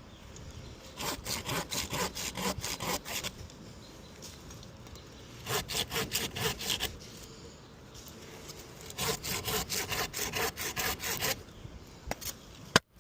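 Handsaw cutting through a tree branch in three bursts of quick back-and-forth strokes, with short pauses between them. Near the end comes a single sharp click, the loudest sound.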